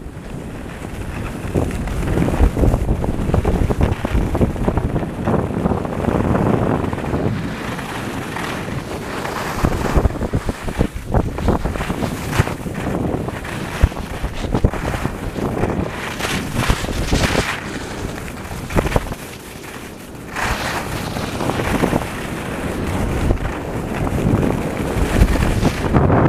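Wind rushing over the microphone during a fast ski descent, with the scrape and rasp of edges carving packed snow in the turns, most busy in the middle stretch.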